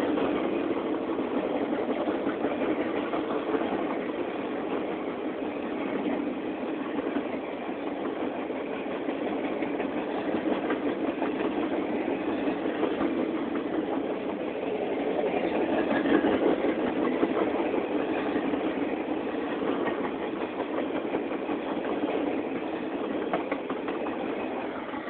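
Norfolk Southern Triple Crown RoadRailer train rolling past: steady rolling noise of steel wheels on the rails, with fine rapid clicking running through it, swelling a little about two-thirds of the way in.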